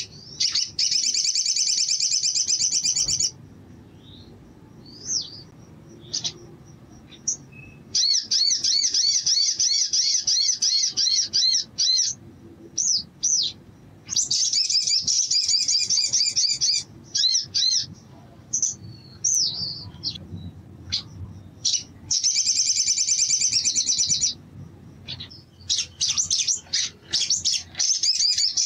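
Olive-backed sunbird (sogok ontong) singing: five high, rapid trilling phrases of about two to four seconds each, with short single chirps in the gaps between them.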